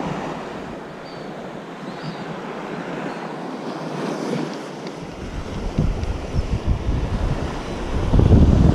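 Surf washing onto the beach. Wind starts buffeting the microphone about five seconds in and grows louder near the end.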